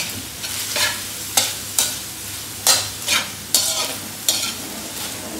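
Metal slotted spatula scraping and stirring diced pork in a wok, about seven strokes, over a steady sizzle of the pork frying in oil as it browns.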